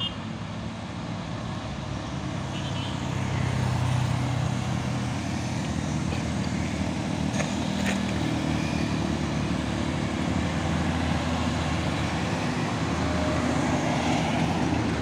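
Uphill traffic: a cargo truck's diesel engine pulling slowly up a steep grade, a steady low drone that grows louder a few seconds in, mixed with passing cars and motorcycles.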